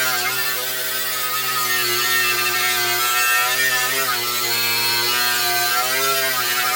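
Handheld electric power tool running continuously, its pitch wavering and dipping now and then as the load on it changes.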